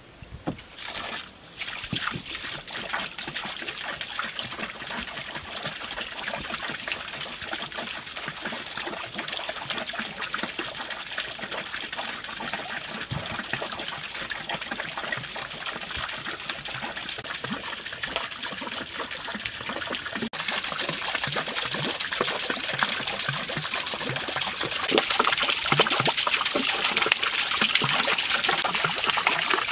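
Water falling from a spout onto a turning bamboo water wheel and trickling and splashing into a stone pond, steady throughout and getting louder in two steps in the second half.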